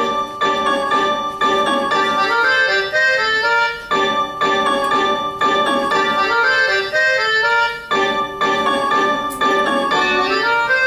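Music: a keyboard melody of short notes, the same phrase repeating about every four seconds.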